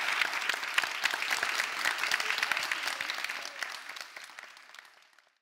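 Studio audience applauding: a dense, even patter of many hands clapping that dies away over the last second or two.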